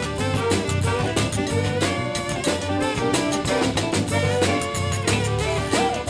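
Live zydeco band playing an instrumental break with no singing: a steady beat and bass under melodic lead lines.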